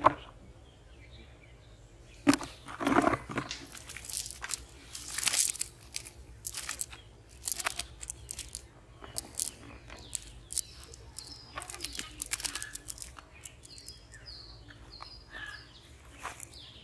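Irregular crunching and rustling of dry grass and a cast net's mesh as caught fish are pulled free of the net by hand on the ground, louder around a couple of moments.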